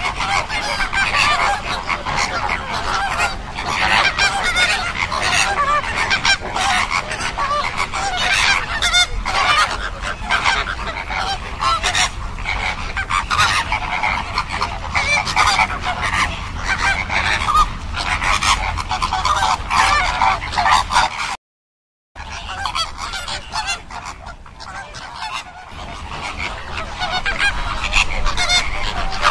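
A large flock of flamingos honking continuously, many goose-like calls overlapping. The sound cuts out completely for under a second about two-thirds of the way through, then resumes a little quieter before building again.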